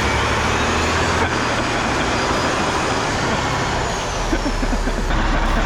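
Bridge erection boat engine running steadily under a dense wash of noise.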